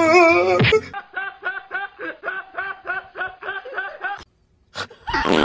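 A man laughing hard in quick, even bursts of about four a second for around three seconds, then stopping abruptly. In the first second a cat gives a wavering yowl.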